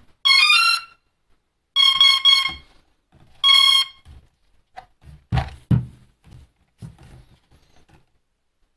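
DJI Phantom quadcopter's power-up tones: a quick rising run of beeps, then three short beeps and a single beep, signalling the drone has switched on and is initialising. A few dull knocks from the drone being handled follow in the second half.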